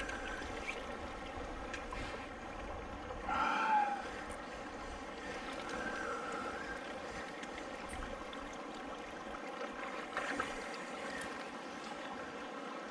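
Steady rush and lap of water around the angler. About three and a half seconds in there is a short higher-pitched sound.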